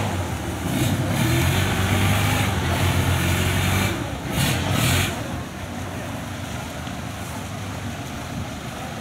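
Kubota DC-95 combine harvester's diesel engine running as the machine drives, with a steady low engine note under a broad mechanical rattle and hiss. Two short surges of hiss come about four to five seconds in, and the sound then eases to a lower level.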